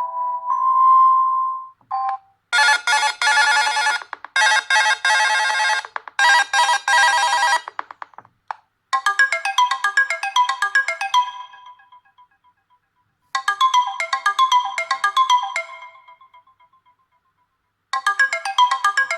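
Nokia G20 phone ringtones played one after another. A few steady notes end about two seconds in. Then a bright, buzzy tone pulses in three blocks, a quick melodic phrase plays twice with a pause between, and a new tone starts near the end.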